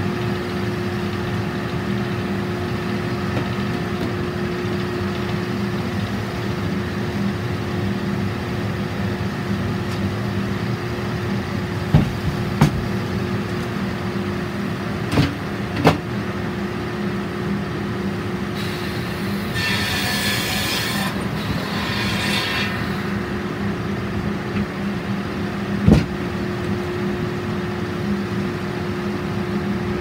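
Sawmill machinery on a belt-driven block mill running with a steady hum. A few sharp wooden knocks sound around the middle and another near the end. About two-thirds of the way through, the saw cuts through a board twice in quick succession with a loud, high rasp.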